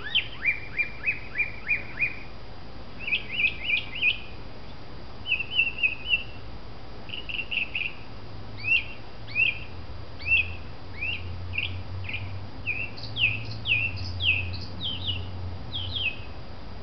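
Mockingbird singing loudly. It repeats each short phrase of chirping notes several times in quick succession, then switches to a different phrase every second or two.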